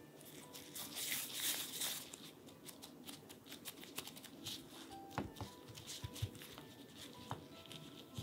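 Disposable gloves rustling and crinkling as hands roll and press chocolate-chip cookie dough into a flat disc, loudest about a second in, followed by a few soft taps as the discs are set down on the lined baking tray.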